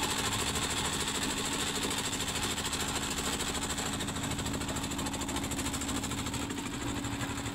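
Boat engine running steadily, with a fast, even beat.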